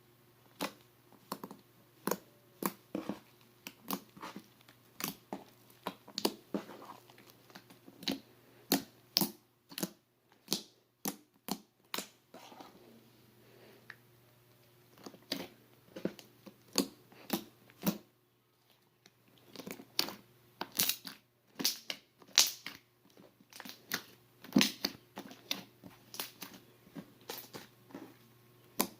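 Glossy slime being squeezed and pressed, giving off sharp wet clicks and pops a few times a second, with a couple of short pauses about halfway through.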